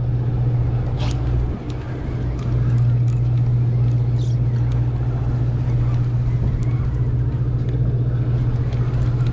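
A boat's engine runs with a steady low hum, dipping briefly about a second and a half in, while a conventional fishing reel is cranked, with a few light ticks.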